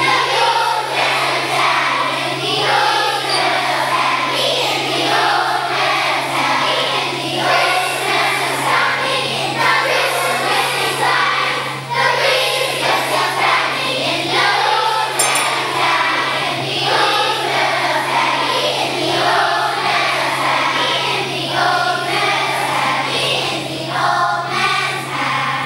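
A large elementary-school children's choir singing a holiday song together.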